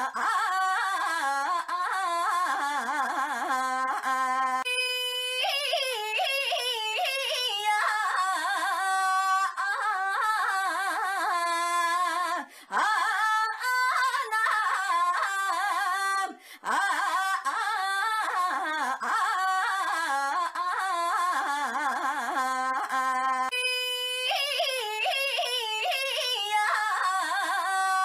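A young woman's high voice crying "ainya" over and over, many copies overlapping at once so that it sounds almost sung. The pitch slides up and down, with two short breaks in the middle.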